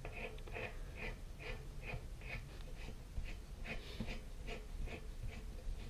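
Faint, even scraping clicks, about two and a half a second, as a compression fitting nut is spun onto its threads by hand on a shallow-well jet pump.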